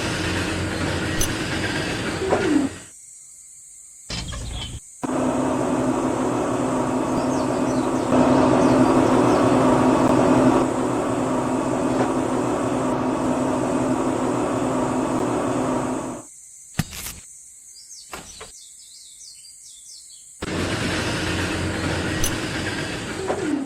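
A steady mechanical hum with a strong low tone, cutting out abruptly a few times, once for about four seconds, with birds chirping in the pauses.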